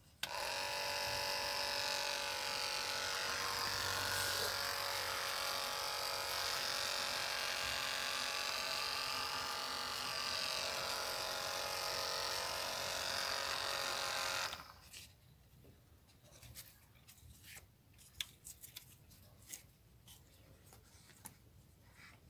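Small toy-car electric motor running on two batteries and spinning a propeller cut from a plastic bottle: a steady whine that starts suddenly and cuts off abruptly after about fourteen seconds. A few light clicks and taps follow.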